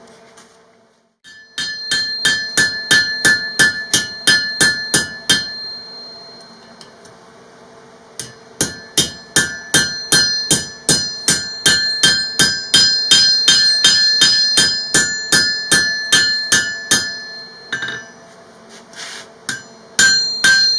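A blacksmith's hammer striking hot steel on an anvil, drawing out a spike knife. The blows come in two long runs of about three to four a second, with a pause between them and a few more blows near the end. Each blow rings with a clear metallic tone.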